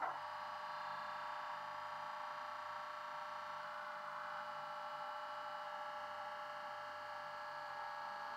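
Recorded Class 20 diesel engine sound from LokSound 5 sound decoders, played through the small megabass speakers in two Bachmann Class 20 model locomotives, idling steadily.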